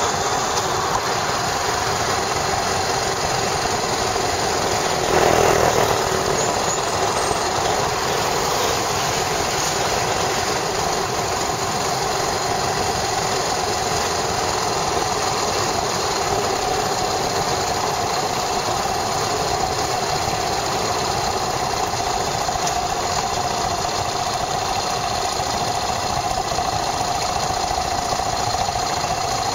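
Yamaha SRX400's single-cylinder four-stroke engine running steadily, heard through a camera mounted on the motorcycle. A brief louder rush comes about five seconds in.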